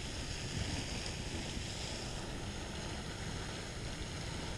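Steady wind rushing and buffeting over the microphone.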